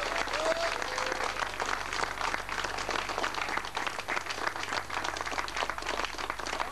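An indoor crowd applauding: many hands clapping in a dense, steady patter.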